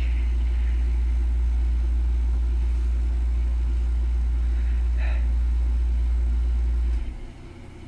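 Steady low rumble that cuts off suddenly about seven seconds in, leaving a much quieter background.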